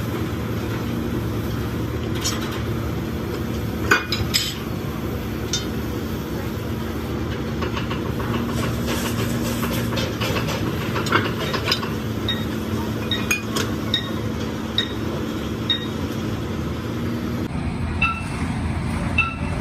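Hydraulic press running with a steady hum as its ram bears down through a steel shim on a bent excavator cylinder rod to straighten it. Scattered metallic clinks and taps of steel on steel, the loudest a sharp clank about four seconds in.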